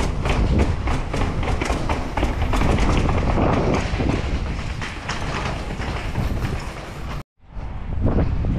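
Mountain bike rattling and clattering at speed over rough ground, a dense run of small knocks over a low wind rumble on the microphone. The sound cuts out for a split second about seven seconds in, then returns.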